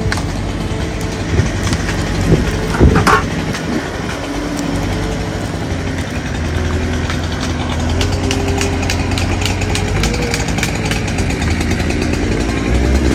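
Kubota SSV65 skid steer's diesel engine running under load while its grapple clamps and lifts a pine log, with a steady whine over the engine and a sharp knock about three seconds in.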